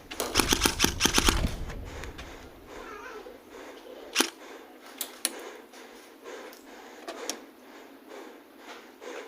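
Airsoft gunfire: a quick string of about nine sharp shots in the first second and a half, then a few scattered single shots later on.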